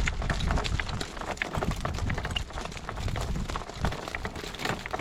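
Horse trotting: a quick run of hoofbeats, with wind rumbling on the microphone.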